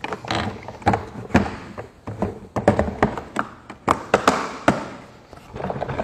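Irregular knocks and thuds of the hard plastic parts of a RIDGID WD1685 wet/dry shop vacuum being handled and fitted back together by hand. The motor is off.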